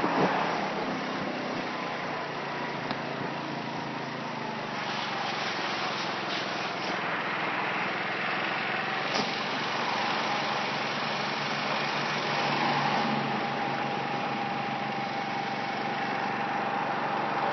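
Moped's small engine running steadily, with a faint whine that eases slightly lower in pitch during the first half and then holds steady.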